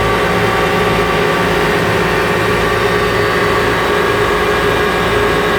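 Electric pump motor running with a steady hum.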